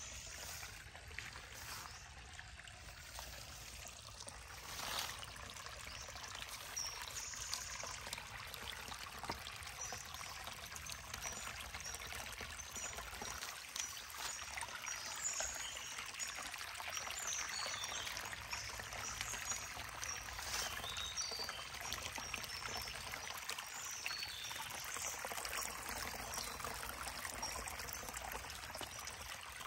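Shallow forest stream trickling over a small log and stones: a steady running-water sound, a little louder after about five seconds.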